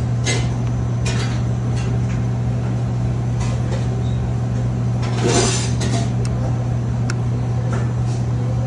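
Steady low machine hum, with scattered sharp clicks, clinks and short scraping noises of things being handled; the loudest scrape comes about five seconds in.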